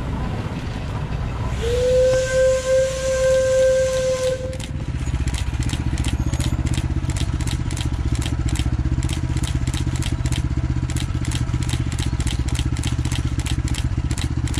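Shay geared steam locomotive sounding one steady whistle blast of about two and a half seconds, a second or so in, with steam hiss around it. It then works away with a fast, even chuffing beat over a steady low rumble.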